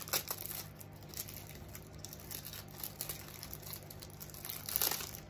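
Rustling and crinkling of a tarot deck being handled and taken out of its box, with scattered small clicks and a louder crinkle near the end.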